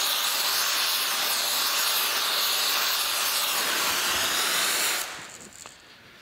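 Rosebud heating torch flame hissing steadily as it heats a large hub nut to break it loose, then dying away about five seconds in.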